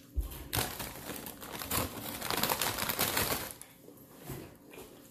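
Crisp crunching of fried food being chewed close to the microphone: dense crackling for about three seconds, then dying down.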